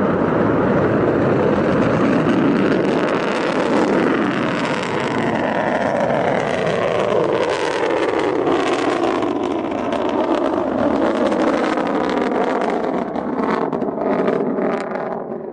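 Ceres-1 solid-fuel rocket motor roaring at liftoff and during the climb: a loud, steady, crackling rush whose main rumble slowly drops in pitch as the rocket rises. It cuts off suddenly at the end.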